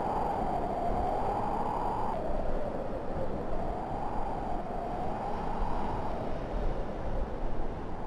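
Wind blowing, a steady whoosh whose hollow tone slowly rises and falls in pitch.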